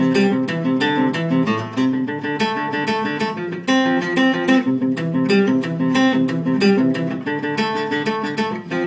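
Acoustic guitar played alone in an instrumental break of a folk song, a quick run of strummed and picked chords with no singing.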